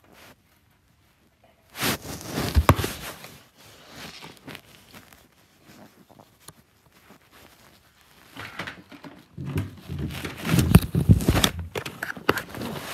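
Clothing rubbing and brushing against a phone's microphone: rustling and scraping handling noise in bursts, starting about two seconds in and louder again from about eight seconds.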